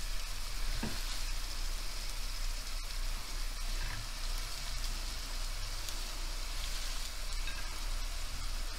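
Onions and peppers frying in olive oil in a pan: a steady sizzle as handfuls of wild greens are laid in on top.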